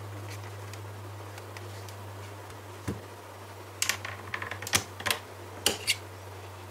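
A quick run of sharp clicks and taps, bunched over about two seconds after a single knock, over a steady low hum.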